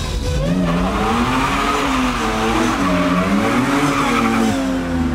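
Car engine revving up and down several times while the tyres squeal: a burnout on the street.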